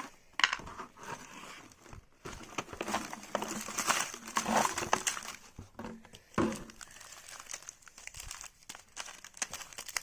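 A chocolate wrapper crinkling and tearing as it is opened by hand, in irregular bursts that are busiest in the middle.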